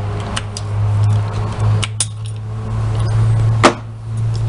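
Small metal parts and tools clicking and clinking as a washing machine transmission is dismantled and a retaining clip is worked off its shaft, with a few separate clinks and the sharpest about three and a half seconds in. A steady low hum runs underneath.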